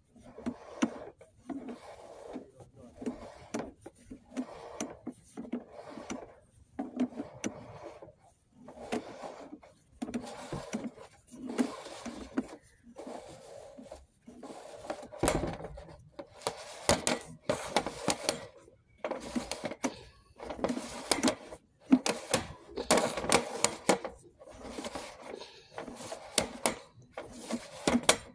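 Drain inspection camera's push-rod being fed by hand along a stormwater pipe in repeated strokes, making a short burst of rubbing noise about once a second. The bursts grow louder about halfway through.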